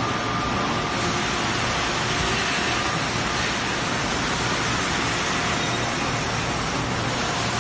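Steady factory machinery noise from CNC machines running: a dense, even hiss with a few faint steady tones and no change in level.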